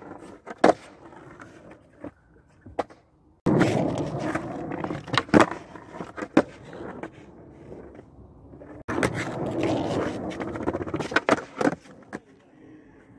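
Skateboard wheels rolling over rough tarmac in two stretches of gritty rumble, with several sharp clacks of the board hitting the ledge and ground during stalls.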